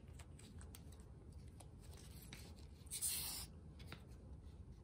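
Quiet handling of a plastic swab tube and cheek swab: faint light ticks and rubbing, with one short hissy rush of noise about three seconds in.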